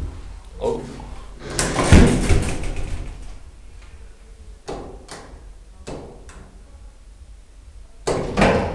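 DEVE hydraulic elevator doors sliding and banging, the loudest about two seconds in, then a few sharp knocks and clicks and another bang near the end.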